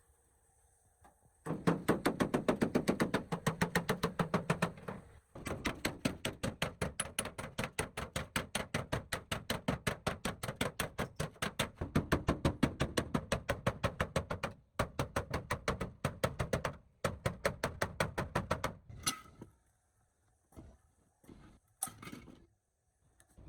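Rapid repeated tool strokes or strikes, about seven a second, in three long runs with short breaks, followed by a few separate knocks near the end.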